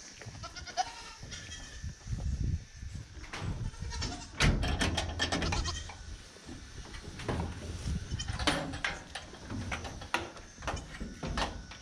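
Goats bleating several times, mixed with knocks and rattles from a sheet-metal barn door as its latch is worked and the door swung open; the loudest is a heavy knock about four seconds in.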